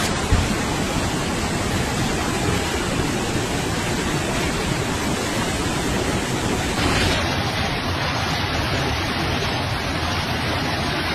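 Swollen river in flood rushing past in a steady, loud roar of fast-moving water.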